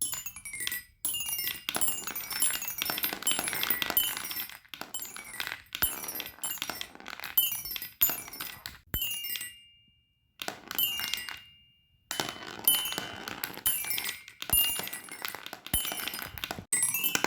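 Fidget toys being handled: rapid clicking and clinking of small hard pieces. Twice near the middle a short, clear ringing tone fades out, each followed by a brief pause.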